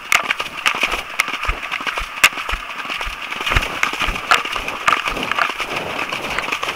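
Horses galloping through shallow water on wet sand: a regular thud of hooves about twice a second under a constant crackling, spattering splash of water.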